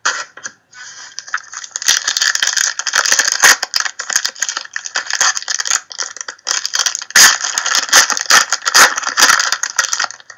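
Crinkly rustling of trading-card packaging and cards being handled: many small, dense crackles that go on continuously from about two seconds in.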